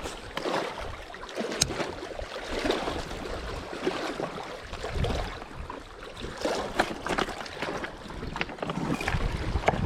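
Steady wind and water noise with scattered small clicks and taps.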